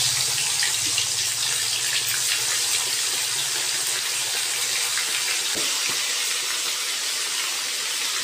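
Marinated fish pieces deep-frying in hot oil in a kadai: a loud, steady sizzle of fast-bubbling oil that eases slightly over the seconds.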